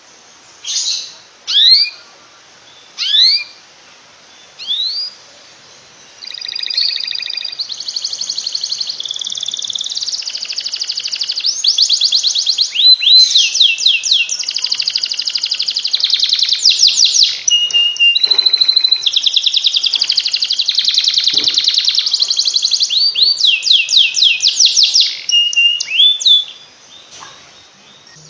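Domestic canary singing: a few single upward-sweeping chirps about a second and a half apart, then from about six seconds in a long unbroken song of rapid trills and rolls lasting some twenty seconds, breaking off into a few last notes near the end.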